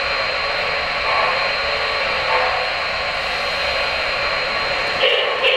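O-scale model steam locomotive's sound system giving off a steady steam hiss while the engine stands. Near the end, rhythmic chuffing starts, about three beats a second, as the locomotive begins to move.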